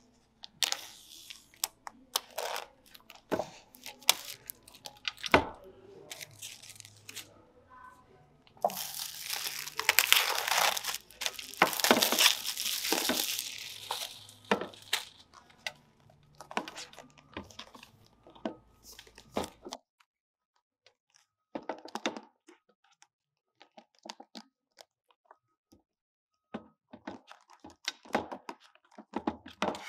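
Clear plastic wrap being torn off a cardboard iPad Air box and crumpled, a dense crinkling for several seconds about a third of the way in. Before and after it come scattered sharp taps and clicks of fingernails and hands on the box.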